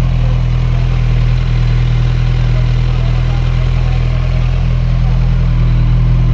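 Kawasaki Z1000R's inline-four engine idling steadily through its stock exhaust, a low, even rumble.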